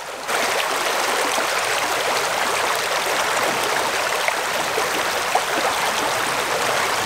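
Shallow spring creek running over a gravel riffle: a steady rush of water that comes up suddenly a moment in and then holds even.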